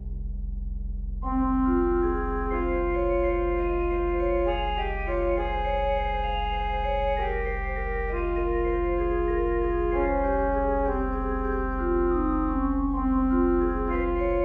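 Organ music: a low note held in the bass, with chords and a slow melody coming in about a second in.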